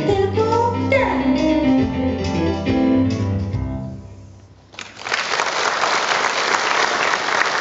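The last bars of a song on its backing music, dying away about four seconds in; a moment later audience applause starts and keeps going.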